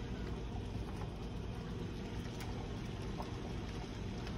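A steady low hum with a light hiss over it, broken by a few faint clicks.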